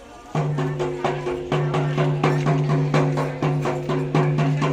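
Rebana frame drums playing a fast, even rhythmic pattern over a steady held low tone, as an instrumental intro; the music comes in about a third of a second in.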